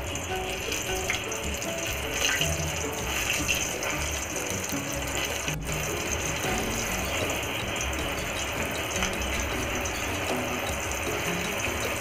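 Chickpeas coated in arrowroot deep-frying in hot mustard oil in an aluminium kadai: a steady bubbling sizzle, with music underneath.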